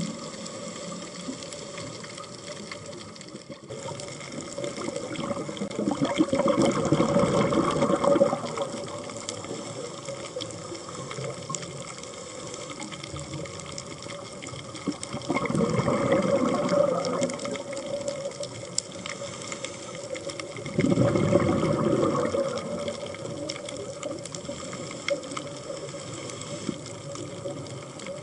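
A scuba diver's exhaled bubbles rushing from the regulator, heard underwater, in three bursts of two to three seconds each. Between the bursts there is a steady underwater hiss and a faint steady hum.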